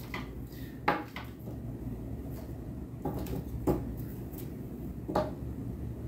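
A few sharp clinks and knocks of hard objects being handled off camera, the loudest about a second in, just past the middle and near the end, over a steady low hum.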